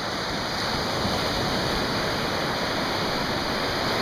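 Ocean surf: small breaking waves and foaming whitewater rushing through the shallows as a steady, even roar of water.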